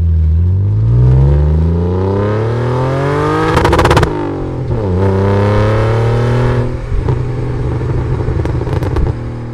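Car engine accelerating hard, its pitch climbing steadily, with a rapid crackle about three and a half seconds in. The pitch drops sharply at a gear change about five seconds in, climbs again and levels off, and a few pops come near the end.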